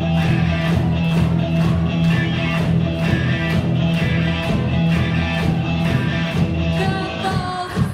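Live rock band playing an instrumental passage: electric guitars with sustained low notes over a steady drumbeat, with no vocals yet.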